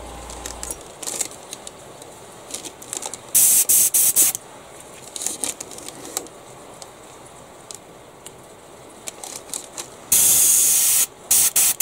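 Airbrush triggered during cleaning, blowing hissing blasts of compressed air and thinner: a few quick short blasts about three and a half seconds in, then a long steady spray near the end followed by short puffs. Faint rubbing and handling of the airbrush fills the gaps.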